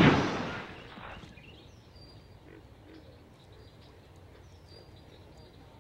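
The tail of a handgun shot fired just before, dying away over about the first second, then quiet outdoor background with a few faint, short, high bird chirps.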